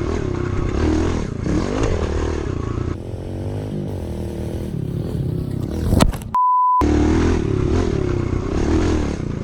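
Kawasaki KLX110 pit bike's small single-cylinder four-stroke engine revving up and down through a jump over a dirt mound. About six seconds in there is one sharp knock, followed at once by a short edited-in censor bleep.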